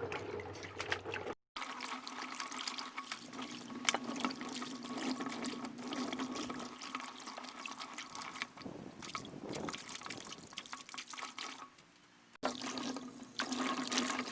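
Water running and splashing over freshly dug potatoes as they are washed, with a steady hum beneath it. The sound drops out briefly about a second and a half in.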